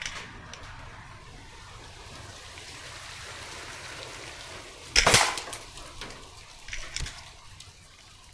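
A single shot from a moderated .22 break-barrel air rifle about five seconds in: one sharp crack with a short ring-off. A second, softer knock follows about two seconds later, over a low background hiss.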